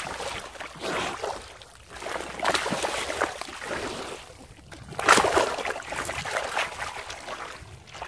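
A sow wallowing in a shallow mud puddle, sloshing and splashing muddy water in several bursts, the loudest about five seconds in.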